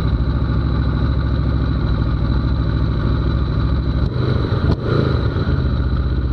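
2019 Aprilia Tuono's V4 engine idling steadily with the bike standing still, heard close from the bike itself. About four seconds in, two sharp clicks come with a brief change in the engine note.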